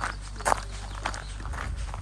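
A hiker's footsteps on the trail, about two steps a second, the loudest about half a second in.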